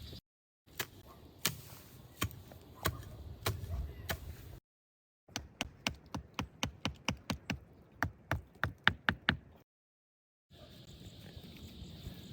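Repeated sharp knocks of a tool striking wood: first a slow series about once every 0.7 s, then after a short break a quicker run of about four strikes a second.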